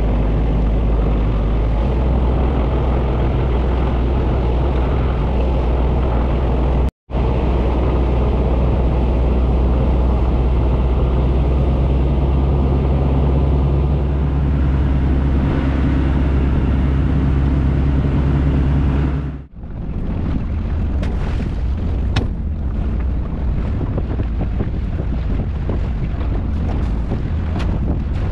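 Small fishing boat's engine running steadily under way, a deep even drone. About two-thirds through the drone stops, leaving wind on the microphone and water around the hull, with a few sharp knocks.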